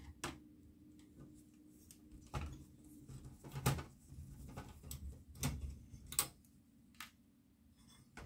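Scattered light clicks and taps of a hand screwdriver and fingers working screws out of a CRT monitor's circuit board and metal chassis, about one every second, over a faint steady hum.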